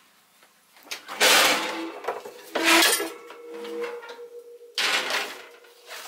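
An oven door opening and a metal baking sheet being slid onto the wire oven rack: metal scraping and clanking in three bursts, with a brief metallic ring after the second.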